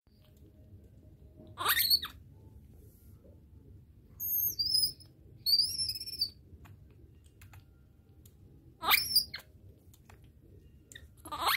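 Baby vervet monkey giving high-pitched squeaks while feeding from a bottle: three short calls that sweep quickly upward, and two longer, higher wavering chirps in the middle, with faint clicks in between.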